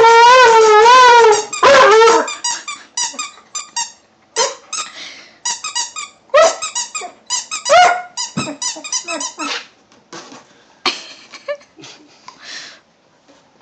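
A husky chewing a squeaky toy. There is one long wavering squeak at the start, then runs of quick short squeaks, growing fainter and more scattered after about ten seconds.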